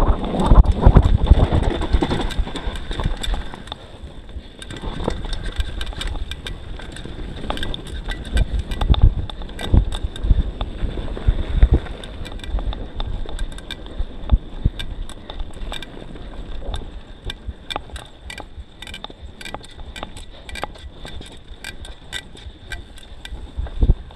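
YT Tues downhill mountain bike rolling fast over a dirt trail: wind buffeting and tyre rumble on the camera microphone, heaviest in the first few seconds. In the second half, quick irregular clicks and rattles from the bike over bumps.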